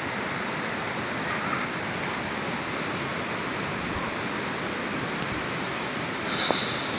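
Shallow, rocky river rushing steadily over stones in a constant hiss, with a brief louder burst near the end.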